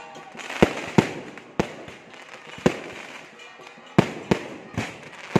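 Aerial fireworks going off overhead: about eight sharp bangs at irregular intervals, each dying away quickly.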